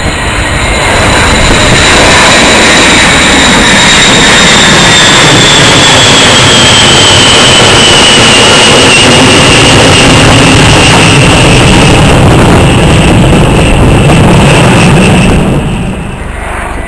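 Boeing B-52 Stratofortress's eight turbofan engines in a low, loud flypast. The jet noise builds over the first couple of seconds, and a high whine falls in pitch as the bomber passes overhead. The sound drops sharply near the end.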